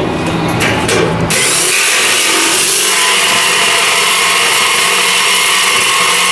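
Corded jigsaw cutting through the thin sheet steel of a 55-gallon drum, a steady rasping buzz that starts about a second in after a few short clicks.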